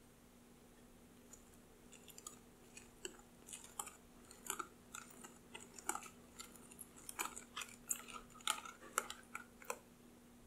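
Wire balloon whisk beating melted chocolate into thick cake batter in a glass bowl: irregular wet clicks and taps of the wires through the batter and against the glass. They start about a second and a half in and stop shortly before the end.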